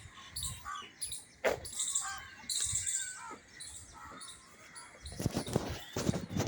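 Small birds chirping and tweeting in short high calls, with a sharp click about a second and a half in and a run of low thumps near the end.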